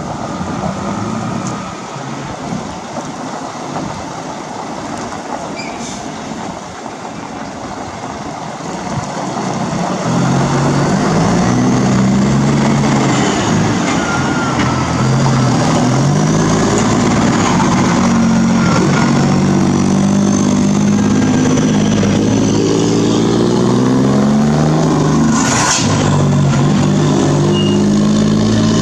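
Scania truck's diesel engine running through a straight-piped exhaust with no muffler. It is quieter and mostly rushing noise at first, then from about ten seconds in it is loud and deep, its pitch stepping up and down as it revs, with a short sharp noise near the end.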